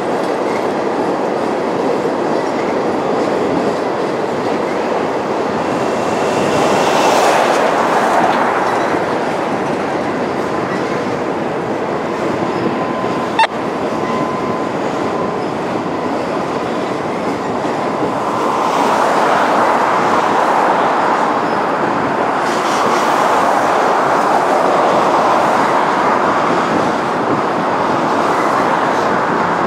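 Double-stack intermodal container cars of a Florida East Coast Railway freight train rolling steadily across a trestle bridge, a continuous rumble of steel wheels on rail with clickety-clack over the joints. It swells louder twice, and there is a single sharp click about halfway through.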